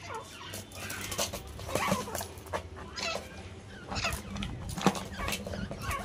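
Grey francolins making short, scattered calls, with a few sharp clicks in between.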